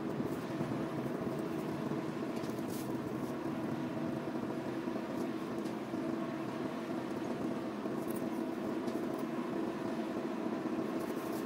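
A steady mechanical drone, like a running engine, holding one even pitch throughout, with a few faint clicks.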